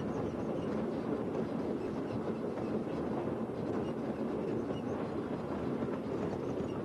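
Motorised railway works drezine travelling along the track, its engine and wheels on the rails making a steady running noise.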